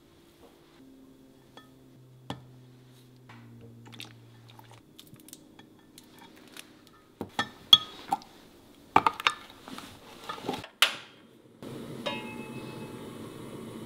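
Metal measuring spoon clinking and scraping against a glass measuring cup as seasonings go into the sauce, with a run of sharp clinks in the middle. Near the end a steady rushing hiss starts from the pot heating on the stove.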